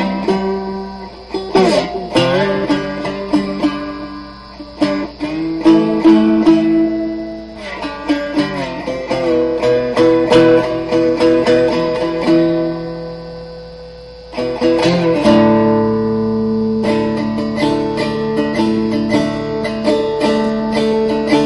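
Charles Kimbler-built three-string cigar box guitar played with a slide: ringing plucked notes with gliding pitch. The notes die away about two-thirds of the way through, then the playing comes back in louder.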